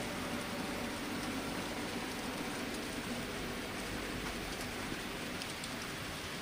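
Z scale model freight train running along the track: a steady whirring hiss of the tiny locomotive motors and the wheels rolling on the rails, even in level throughout.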